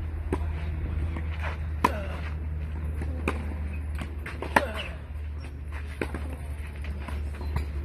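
Tennis ball struck by a racket and bouncing on a clay court in a rally: sharp pops roughly every one and a half seconds, the loudest about 2 and 4.5 seconds in, over a steady low rumble.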